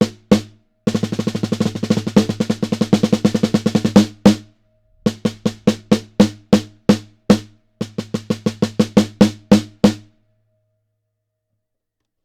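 A 14 x 5.5 inch six-ply birch snare drum with coated head and die-cast hoops, struck with sticks. Two hits, then a fast run of strokes at about nine a second for some three seconds, then two groups of single strokes at about two or three a second, stopping about ten seconds in.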